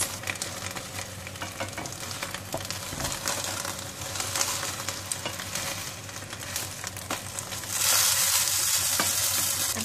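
Oil sizzling in a stainless steel pan under foil-wrapped fish parcels, with light clicks and knocks as wooden spatulas turn the parcels. The sizzling swells louder for a second or two near the end.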